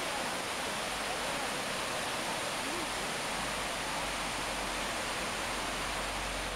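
Waterfall and river rapids rushing over the mill weirs, a steady even noise of falling water.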